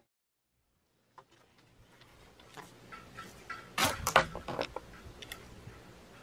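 About a second of silence, then dry sticks and brush cracking and snapping as they are handled, with a quick run of loud sharp cracks about four seconds in.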